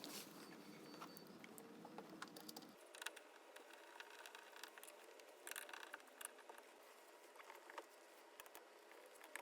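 Near silence with faint scattered clicks and short rustles.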